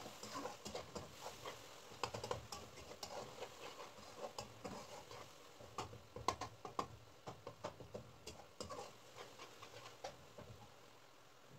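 Metal spatula scraping and tapping against the side and bottom of a metal karahi while stirring tomato masala frying in oil: irregular quick clicks and scrapes, several a second.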